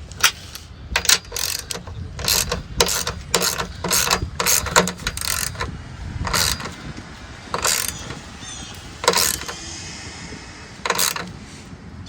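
Ratchet wrench worked in short strokes, about a dozen irregular bursts of clicking.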